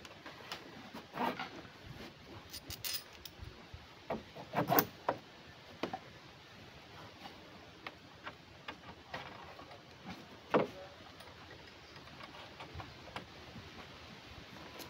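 Scattered light knocks and clicks as timber is handled on a wooden boat's cabin frame. The loudest come about five seconds in and again about ten and a half seconds in.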